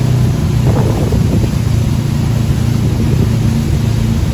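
MasterCraft wake boat's inboard engine running steadily at speed while towing tubes, a low drone under the rush of wind and churned water.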